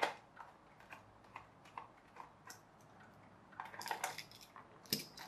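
Small precision screwdriver turning screws out of a plastic toy car's base: light, fairly regular ticks, about two or three a second, then a quick cluster of clicks and one sharper click near the end as plastic parts knock together.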